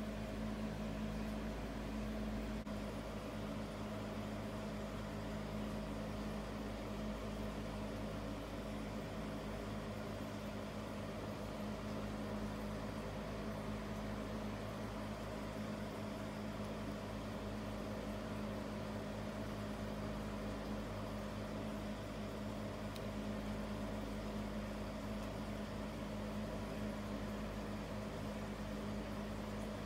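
Steady low machine hum with several fixed tones, unchanging throughout.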